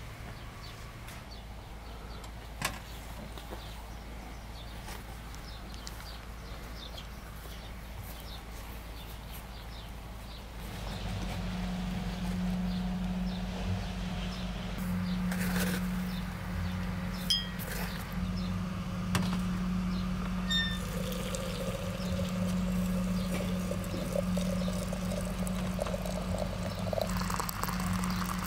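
A samovar boiling with a steady low hum, setting in about a third of the way through. Near the end, hot water pours from its tap into a porcelain teapot of loose black tea.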